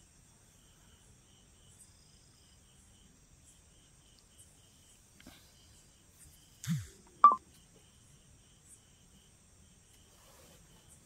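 Faint, steady high-pitched insect chirring, with a softer chirp pulsing about three times a second. About seven seconds in, a low falling sound and then a short, sharp high-pitched sound, the loudest thing here.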